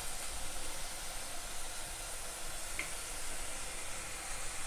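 Diced bacon sizzling faintly and steadily in a stainless steel skillet as its fat slowly renders.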